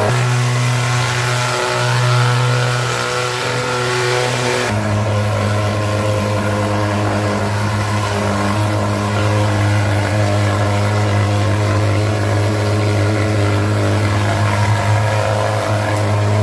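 Handheld thermal fogging machine, a pulse-jet insecticide fogger, running with a steady loud drone as it sprays mosquito fog. Its tone shifts slightly about four and a half seconds in.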